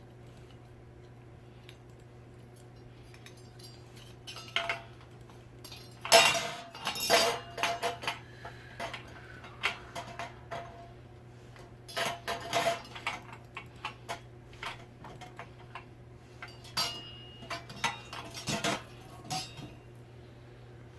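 Metal ceiling-fan parts and hardware being handled, with scattered sharp metallic clinks and clanks in clusters starting about four seconds in. The loudest clanks come about six seconds in. A faint steady low hum runs underneath.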